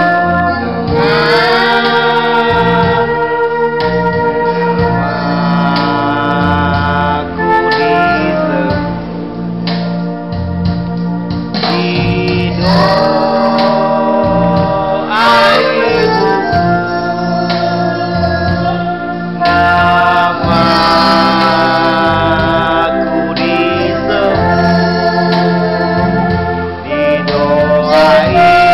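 A young girl singing an Indonesian children's hymn into a microphone, with electronic organ or keyboard accompaniment.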